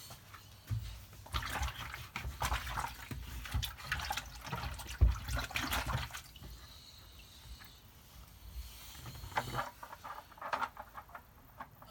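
Water pouring and splashing into a repaired chicken drinker, in irregular bursts for the first half and again near the end, as it is filled for a leak test.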